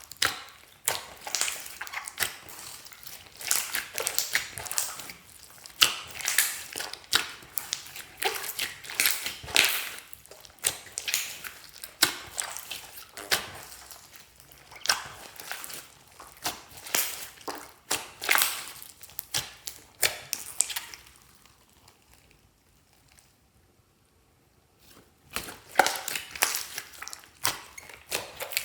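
Hands kneading, squeezing and stretching clear slime mixed with store-bought slime: sticky, wet pops and crackles in irregular bursts, stopping for a few seconds about three quarters of the way through before starting again.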